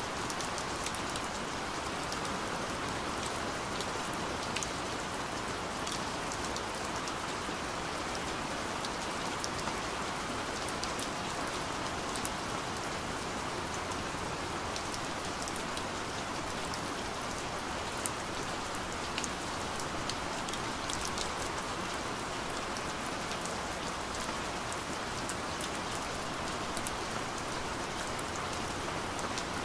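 Steady rain falling, a constant hiss scattered with sharp ticks of individual drops.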